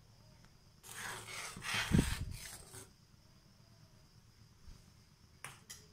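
A steel spoon stirring a thick, boiling paste in a metal pan: a spell of sloshing and scraping in the first half with a low knock about two seconds in, then quieter, with a couple of faint clicks near the end.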